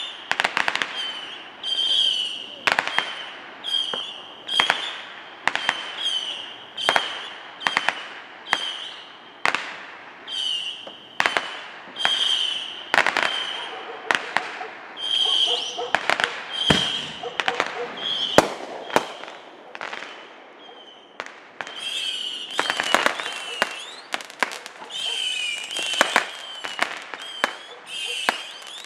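Fireworks going off over a lake in a steady string of sharp bangs and crackles, about one a second, with a couple of deeper booms about halfway through.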